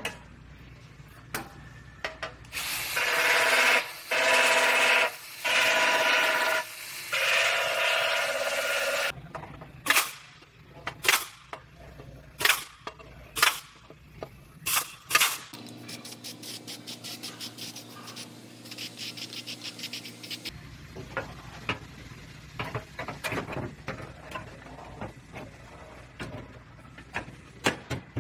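Air tools working sheet-metal car body panels: a pneumatic tool whirring in four bursts of a second or so, then a run of about eight sharp clacks a little over half a second apart. After a steadier quiet hum, lighter clicks and taps follow as the panel is handled.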